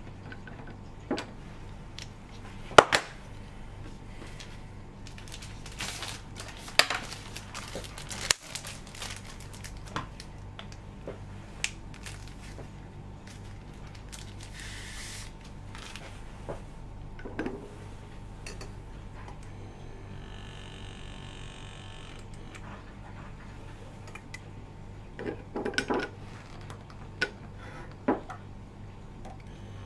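Sharp plastic clicks and knocks from handling screw caps, 50 ml centrifuge tubes in a wire rack and a serological pipette, over a steady low hum. About two-thirds of the way through, a battery-powered pipette controller's small motor whirs for about two seconds as it pumps liquid.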